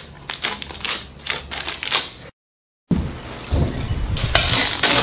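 Rapid crisp clicks and papery rustling of dollar bills being flicked and pulled. This cuts off dead for half a second, then a new sound comes in, with salsa music starting near the end.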